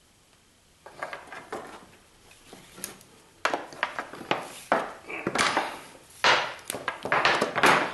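Rubber insulation of a thick three-conductor dryer power cord being peeled and torn apart by hand into its separate strands: irregular tearing and crackling handling noise that starts about a second in and gets louder about halfway through.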